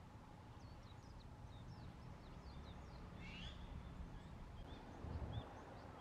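Faint outdoor ambience of small songbirds chirping: a quick run of short, high notes in the first half, a louder call about three seconds in, and a few more chirps near the end, over a low background rumble that swells briefly about five seconds in.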